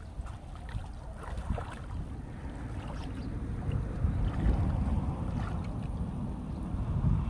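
Wind buffeting the microphone: a low, uneven rumble that grows louder through the stretch, with a few faint brief sounds over it.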